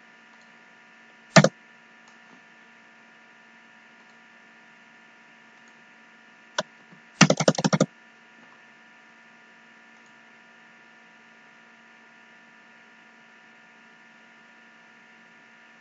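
Steady electrical hum with a single click about a second in and another near the middle, then a quick run of computer keyboard keystrokes at a command prompt about seven seconds in.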